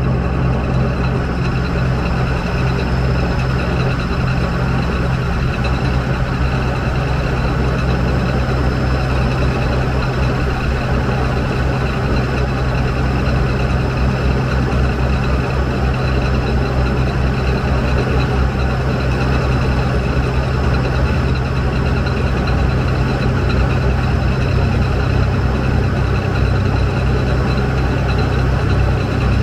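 CME-750X drill rig's engine and hydraulics running steadily while the rotary drill head turns: a low engine drone with a thin, steady high whine over it. The low note shifts slightly about seven seconds in.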